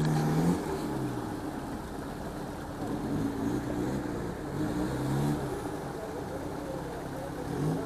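Off-road 4x4 engine revving up and down in repeated surges, strongest at the start, again a few seconds in, and briefly near the end, over a steady running rumble.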